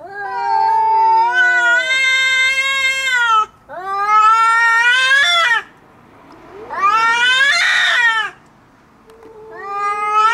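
Two cats, a tabby and a calico, yowling at each other in a fight standoff: four long, wavering caterwauls in a row with short gaps, the last still going at the end. These are the drawn-out threat yowls of cats squaring off before a fight.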